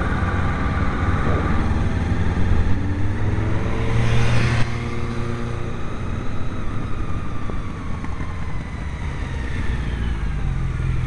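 Motorcycle engine heard from a camera mounted on the moving bike, with heavy wind rush on the microphone; the engine note rises in short steps over a few seconds, then eases off and falls away slowly as the bike slows behind the riders ahead.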